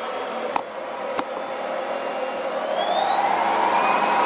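Roidmi F8 cordless stick vacuum running, its motor whine rising about two seconds in and then holding at a higher pitch as it runs on its high power setting. A couple of clicks come in the first second.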